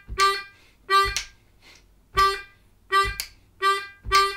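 Hohner Special 20 diatonic harmonica in C playing short, separated draw notes on the 2 hole (the note G), six times. The notes are spaced unevenly, in a funky, syncopated rhythm.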